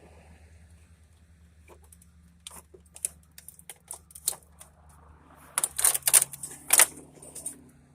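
Sharp clicks and rattles of hard plastic and metal parts being handled and pulled loose while an old CRT television is taken apart. The clicks are scattered at first, then a louder burst of knocks and rattling comes about two-thirds of the way in.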